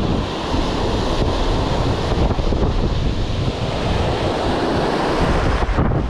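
Ocean surf breaking and washing in over a rocky shore, with wind buffeting the microphone.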